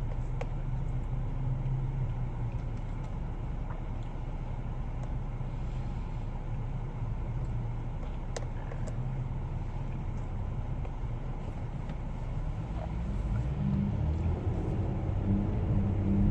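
Steady low road and engine rumble inside a moving car's cabin, growing louder in the last few seconds.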